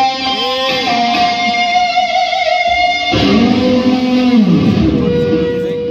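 Electric guitar played live: sustained notes that bend and waver in pitch. About three seconds in a lower riff comes in, and near the end one note is held long.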